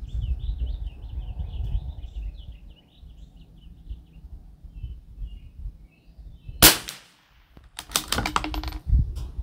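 A single shot from an Anschutz 1761 .22 LR bolt-action rifle firing SK Standard Plus ammunition, one sharp crack about two-thirds of the way in. About a second later comes a quick run of metallic clicks as the bolt is worked to eject the case and chamber the next round. Birds chirp in the first half.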